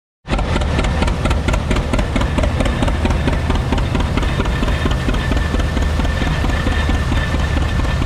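John Deere G tractor's two-cylinder engine running steadily under belt load, with a fast, even beat, as it drives an Oliver stationary baler through a long flat belt. A thin high whine joins near the end.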